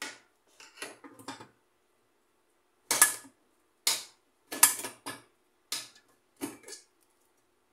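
Pliers clicking and knocking against metal parts inside a rice cooker's base, pressing in the stiff locking tabs of the thermostat sensor's cover. About ten short, sharp clicks come irregularly, with silence between them.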